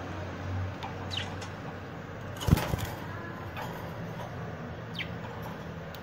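Caged budgerigars giving a few short, falling chirps, with a brief loud clatter about two and a half seconds in.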